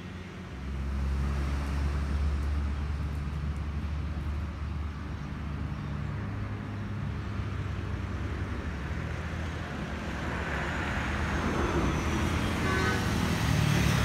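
A motor vehicle's engine runs steadily at low revs, starting up loudly about a second in. Road noise swells over the last few seconds as traffic passes close by.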